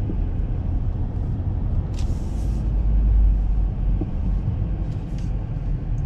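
Low, steady rumble of a car being driven, engine and road noise, swelling a little about three seconds in, with a brief hiss about two seconds in.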